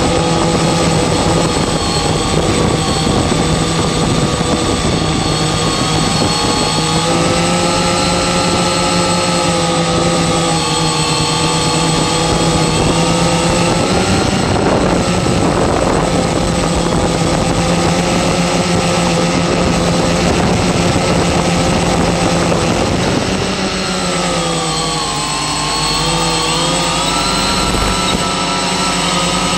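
Multirotor octocopter's electric motors and propellers whirring steadily, a pitched buzz that shifts up and down with throttle. The pitch drops for a few seconds about three-quarters of the way through, then climbs back.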